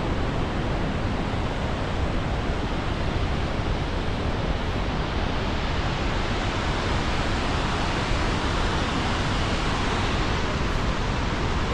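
Victoria Falls roaring: a steady, unbroken rush of a huge volume of falling water and spray.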